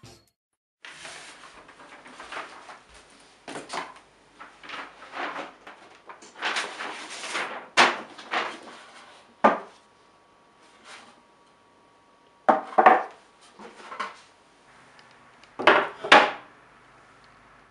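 Repeated scratchy strokes of drawing on a canvas. After a pause, a few sharp wooden knocks and clatters as stretched canvases are handled.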